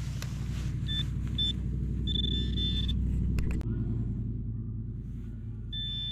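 High electronic beeps from metal-detecting gear: two short beeps about a second in, a longer tone from about two to three seconds, and another near the end as the Garrett pinpointer is pressed to the sand over a target. Under them a steady low engine-like rumble, which shifts about halfway through.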